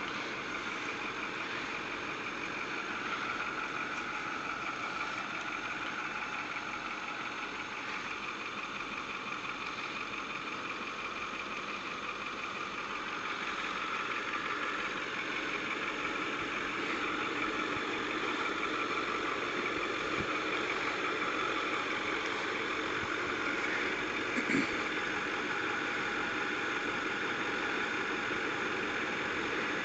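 Ford F-350 and F-250 pickup trucks' engines idling steadily, with one brief knock late on.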